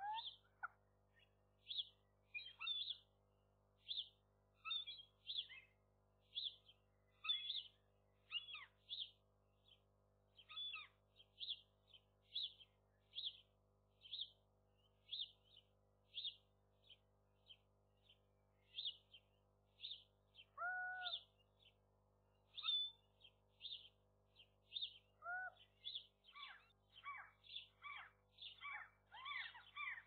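Faint bird calls: a short, high call repeated a little more than once a second, with a couple of lower, longer calls in the later half and a quicker run of calls near the end.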